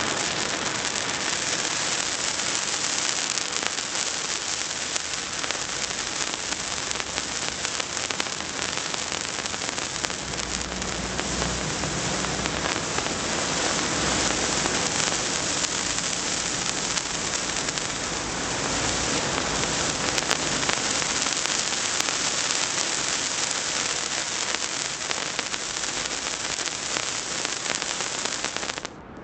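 Handheld firework burning, a steady hiss with fine crackling of spraying sparks, cutting off suddenly near the end as it burns out.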